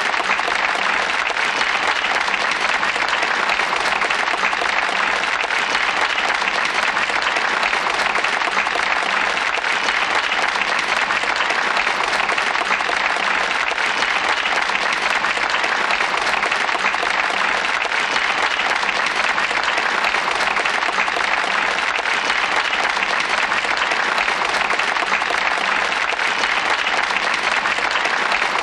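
A crowd applauding steadily, dense continuous clapping at an even level.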